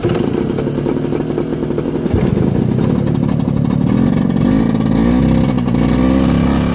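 Vintage snowmobile engine running and revving, its pitch rising and falling.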